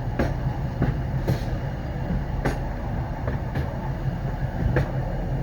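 Freight train rolling along the track: a steady low rumble with irregular metallic clanks and knocks from the cars.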